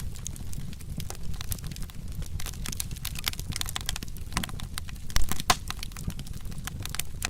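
Wood fire crackling, with irregular sharp pops and snaps over a steady low rumble; a couple of louder pops come about five seconds in.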